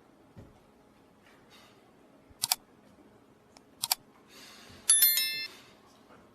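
Two sharp clicks about a second and a half apart, then a short, bright, metallic ringing chime that dies away within about a second.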